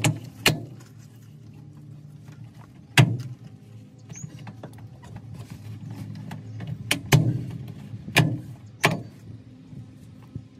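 Plastic push-in clips snapping loose as the clipped-in trim bar along the top of a 2003 Chevrolet Silverado's back cab wall is pulled off by hand: about half a dozen sharp snaps, the loudest about three seconds in and about seven seconds in. Some of the snaps are the bar's plastic tabs breaking.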